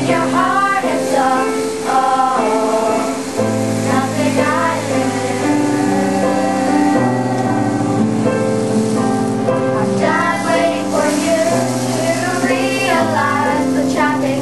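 Music: high voices singing a melody over sustained held chords.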